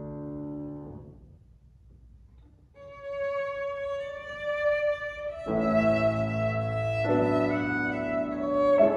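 Violin and grand piano playing a slow classical duet. A piano chord fades away about a second in; after a short pause the violin enters with a long held note, and the piano comes back in beneath it about halfway through.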